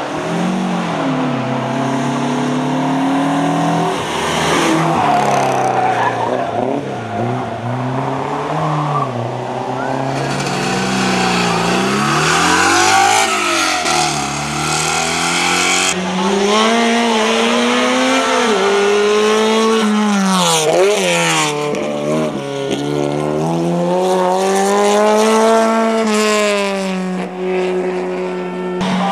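A succession of race car engines under hard acceleration, the pitch climbing and then dropping again and again as the drivers change gear.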